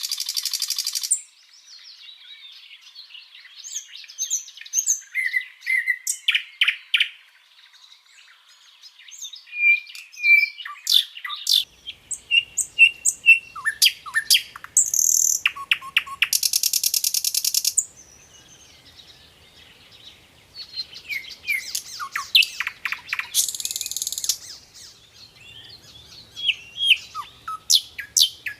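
A sikatan londo flycatcher singing a varied, run-on song. It mixes short whistled notes and chirps with fast rattles, and twice breaks into loud buzzy trills, about halfway through and again later.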